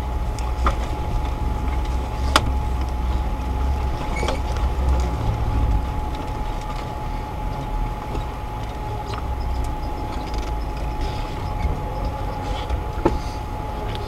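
Off-road 4x4 driving slowly over a rough snowy forest track: a low, steady engine and drivetrain rumble heard from inside the cabin, with a thin steady whine and a few sharp knocks as the vehicle jolts over bumps, the loudest about two seconds in and near the end.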